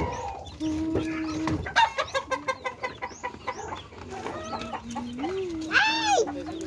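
Chickens clucking, with a quick run of short clucks about two seconds in and one loud rising-and-falling call near the end.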